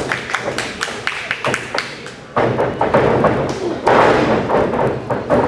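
Wrestlers' bodies and feet thudding on a wrestling ring's canvas mat, a quick run of sharp impacts, with crowd voices and shouting that grow louder about halfway through.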